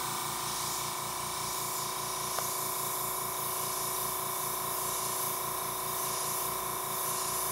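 Dual-action airbrush with a gravity-feed cup hissing steadily as it sprays paint onto paper in thin strokes. A fast, even low pulsing runs underneath.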